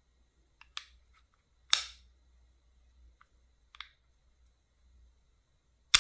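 Hard plastic clicks as a detachable nozzle cap is handled and fitted onto the head of a handheld mini jet fan, which is switched off: a few separate sharp clicks, a loud one a little under two seconds in and the loudest right at the end.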